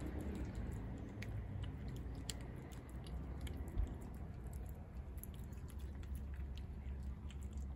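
Tabby cat chewing wet cat food from a plate, with small scattered wet clicks and smacks. A low steady rumble runs underneath, and there is one short thump just before the middle.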